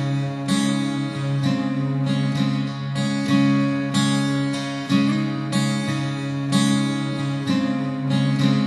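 Instrumental background music of plucked strings, with a new note struck every half second to a second over a steady low sustained tone.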